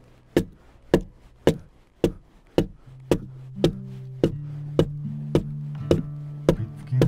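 Hewing axe chopping into a spruce log, a sharp strike a little under twice a second in an even rhythm. Low sustained music notes come in about three seconds in.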